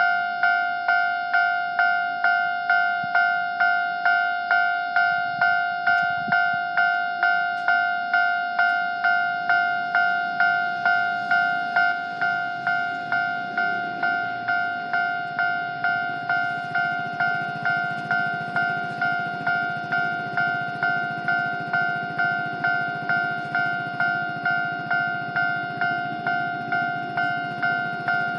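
Japanese level-crossing warning bell starting up and ringing its electronic two-tone 'kan-kan' strike about twice a second, signalling that a train is approaching. A low rumble builds underneath from about halfway through.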